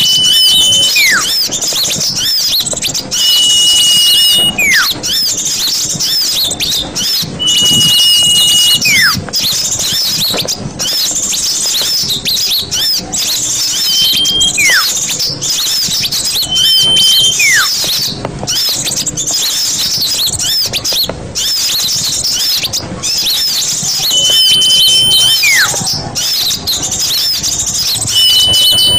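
Bird-lure recording of small birds: a dense, continuous chatter of high chirps, with a held high whistle followed by a steeply falling whistle repeating about every four seconds.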